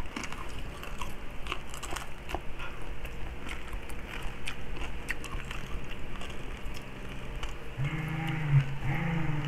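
Eating sounds of crispy pata, deep-fried pork knuckle: chewing and crunching of the crisp skin, with scattered small clicks and crackles as the meat is pulled apart by hand. Near the end a person hums twice.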